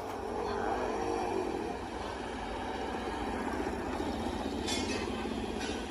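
Motor vehicle engine running: a low, steady rumble with a fast pulse.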